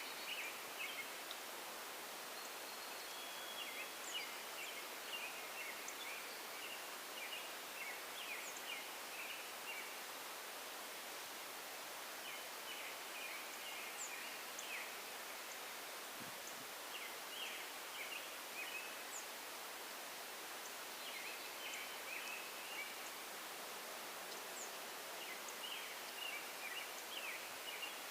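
Small birds singing short, chirpy phrases that come again every few seconds, over a steady hiss of outdoor background noise.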